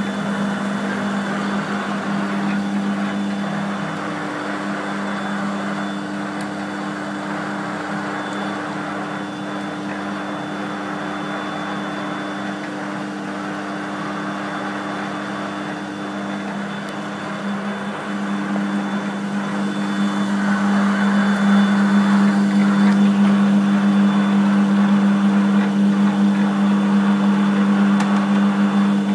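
Large engine lathe (1350 mm swing) running: a steady electric-motor and gearbox hum that grows noticeably louder about two-thirds of the way through.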